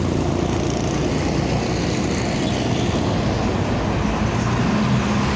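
Large diesel bus engine running steadily with traffic noise around it.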